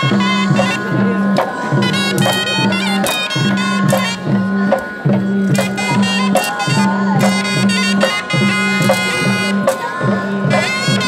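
Traditional dance music: a shrill piping melody over steady drone tones and a repeating drumbeat, with sharp clacks throughout, accompanying a kolat stick dance.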